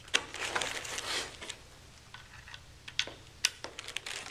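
Cables and plastic connectors being handled among foam and cardboard packing: a rustle of cords for about a second and a half, then a few sharp clicks near the end.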